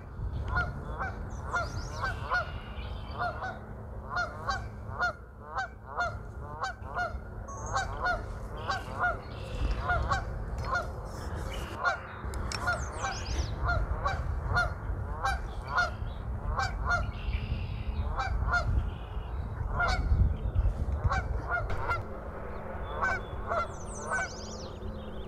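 A flock of geese honking, short repeated calls one or two a second, with a low rumble underneath and the thin chirps of smaller birds.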